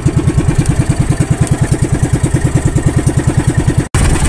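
Small fishing boat's engine running steadily with an even, rapid putter of about ten pulses a second. Near the end the sound breaks off for an instant and gives way to a rougher, windier engine noise.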